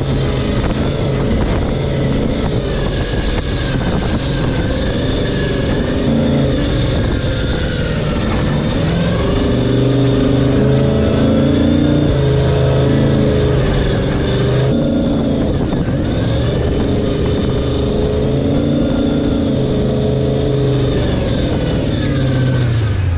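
Off-road race truck's engine running at speed over desert dirt, its pitch rising and falling with the throttle, with an abrupt change about 15 seconds in, under steady road and wind noise.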